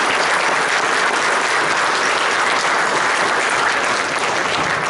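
Audience applauding, a steady, dense clapping.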